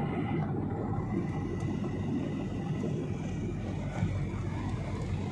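Steady cabin noise of an airliner in flight: the even drone of engines and airflow, deep and constant, with a faint high whine over it. A soft knock about four seconds in.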